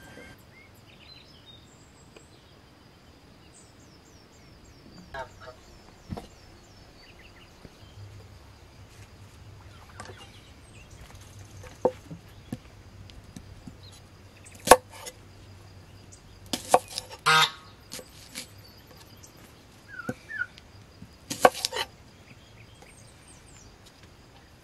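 Scattered sharp knocks and a few short, loud calls from farmyard fowl, with small birds chirping faintly near the start.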